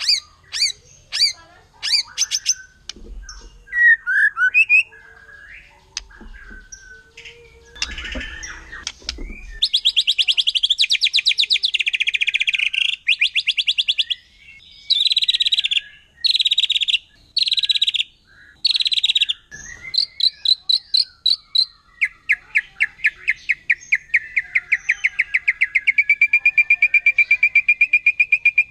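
White-rumped shama singing. First come varied whistled phrases, then, from about a third of the way in, several bursts of fast rapid-fire notes (the shama's 'tembakan'). It ends in a long, even, rapid trill held at one pitch.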